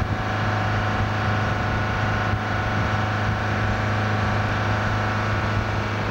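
Motorboat's diesel engine running steadily with the boat under way, a constant low hum with many overtones over a rushing noise.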